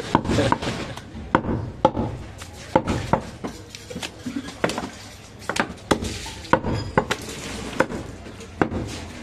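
A butcher's cleaver knocking and clinking on a wooden chopping block while a goat leg is worked: irregular sharp knocks, about two a second, some with a brief metallic ring.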